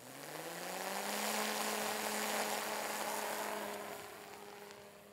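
Electric propeller motor of a hand-launched Puma unmanned aircraft spinning up with a rising hum over the first second, then running at a steady pitch as the aircraft is thrown into the air. It fades over the last second or so as the aircraft climbs away.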